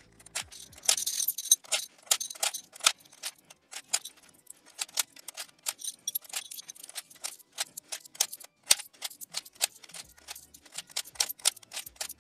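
Coins dropped one after another into a clear plastic digital coin-counting piggy bank, played sped up: a fast, irregular run of metallic clicks and clinks, with a short rattle of coins about a second in.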